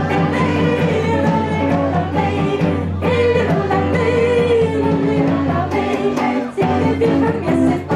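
Dance music with singing over a steady low drone; the drone and level drop out for a moment about six and a half seconds in.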